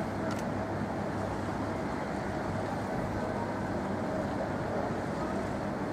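Steady outdoor riverside city noise with a constant low engine hum from traffic and boats on the river.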